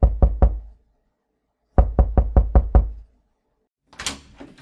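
Knocking on a door: three quick knocks, a pause, then six more in a rapid run. A short swish follows near the end.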